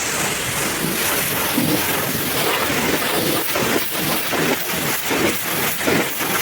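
High-pressure washer spray blasting water against a truck, a hiss with uneven spattering as the jet moves over the surface.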